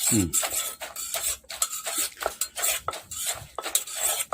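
Utensils clattering and scraping in a mortar as a pounded seafood salad with rice noodles is mixed: a quick, irregular run of knocks and scrapes.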